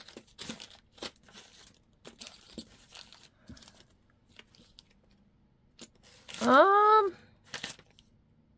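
Packets of beads rustling and crinkling in short scattered bursts as they are sorted through in a search. Near the end, a short rising hum from a woman's voice.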